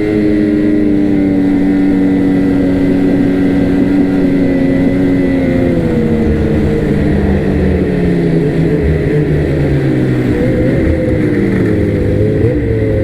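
Snowmobile engine running under way. Its note holds steady for several seconds, drops gradually from about halfway through as the sled slows, then rises and falls a little near the end.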